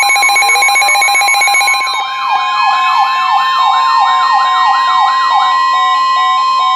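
Emergency Alert System alert tones between two warnings: a steady, high attention tone held for about seven seconds, with pulsing tones in the first two seconds and then a fast siren-like warble sweeping up and down, about three or four sweeps a second, until a little past the middle.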